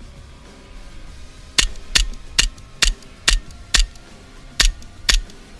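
Airsoft replica firing single shots, about two a second, starting a little over a second in, with a short break near the middle.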